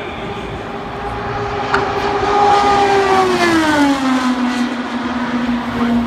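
An IndyCar's 2.2-litre twin-turbo V6 at speed on a qualifying run, passing by. Its high, steady engine note drops in pitch as the car goes past about three seconds in, then holds lower as it pulls away.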